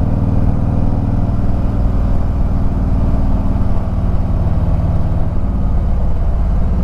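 Harley-Davidson Ultra Limited's V-twin engine running steadily while riding, with a slight change in engine note about five seconds in.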